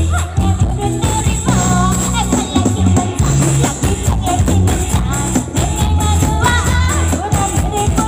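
Live band playing Thai ramwong dance music: a singer's melody glides over a steady pulsing bass beat and drum hits.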